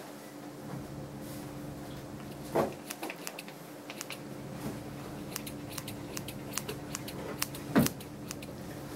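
Grooming tools working on a small dog's face hair, giving scattered light clicks and snips over a steady low hum. There is a brief louder sound about two and a half seconds in and another near the end.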